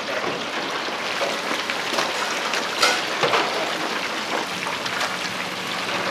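Rice frying in a hot pan, a dense steady sizzle, with a sharp metal clink about three seconds in.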